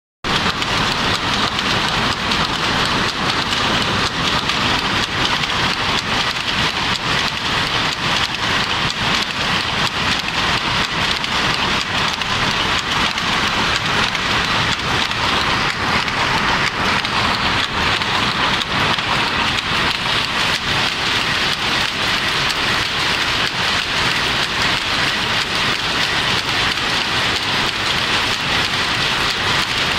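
Power loom weaving at speed, fitted with a 16-hook electronic selvage jacquard: a loud, steady, dense mechanical clatter of rapid clicks.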